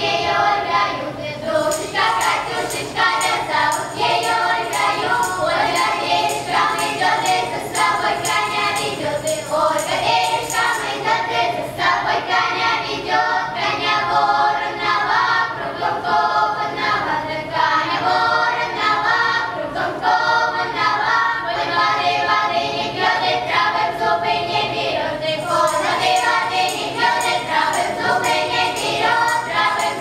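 Children's ensemble singing a Cossack folk song together in chorus.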